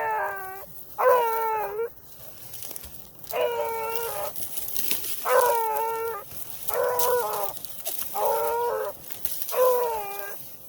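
Beagle baying on a rabbit track: seven drawn-out bawls, each slightly falling in pitch, coming one to two seconds apart. A hound "opening up" like this means it has struck the rabbit's scent and is trailing it.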